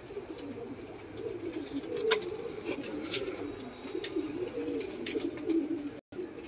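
Domestic pigeons cooing continuously, a low, wavering coo, with a couple of short clicks.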